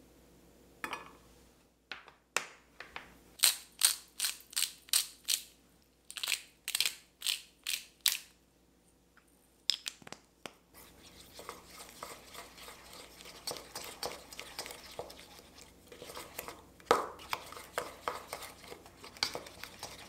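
A wooden spoon mixing a thick sauce in a small stainless steel bowl. First comes a run of sharp, evenly spaced strokes, about three a second; from about halfway it turns to steady stirring and scraping against the bowl.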